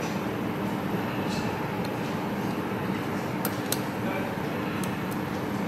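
Steady workshop background noise, a hiss with a low hum, with a few light clicks about three and a half and five seconds in.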